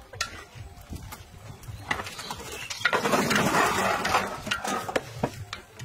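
A few sharp clicks, then about three seconds of loud splashing and hissing as blocks of dried instant noodles are dropped into a wok of boiling water.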